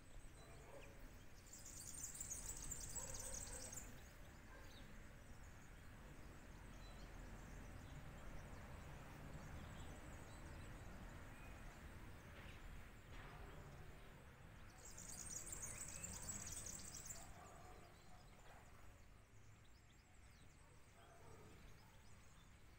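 A bird sings a high, rapid trill twice, each lasting about two seconds, near the start and again past the middle, over a faint steady outdoor background.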